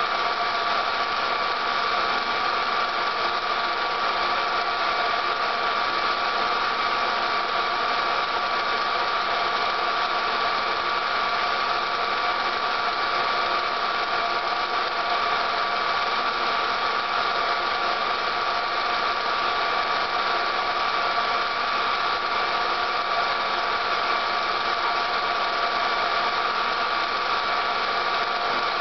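Film projector running: a steady mechanical whir with a faint clatter that does not change.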